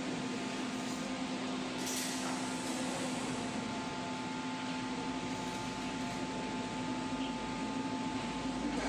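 Steady machine hum with an even hiss, like ventilation or an appliance running, with one brief click about two seconds in.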